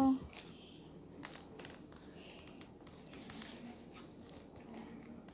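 Faint crunching of a child chewing snack chips, heard as scattered small clicks and crackles.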